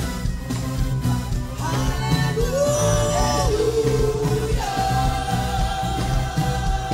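Live gospel band music with steady drums and bass under a melody of long held notes that slide up into pitch, one held steadily through the last couple of seconds, with singing.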